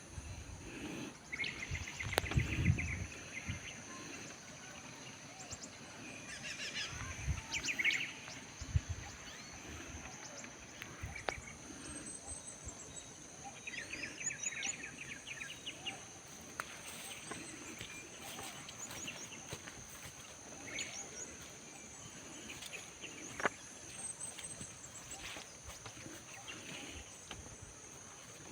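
Rural outdoor ambience: birds chirping and trilling now and then over a steady high-pitched insect drone, with a few low thumps in the first eight seconds.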